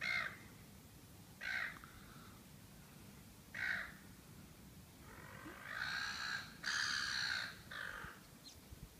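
A bird calling: three short calls about two seconds apart, then longer drawn-out calls near the end.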